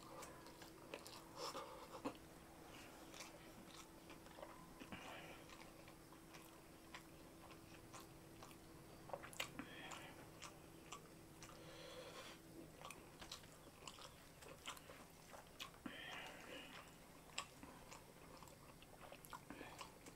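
Faint close-up chewing and mouth sounds of a person eating rice and semur jengkol (dog fruit braised in sweet soy sauce) by hand, with scattered small wet clicks and smacks.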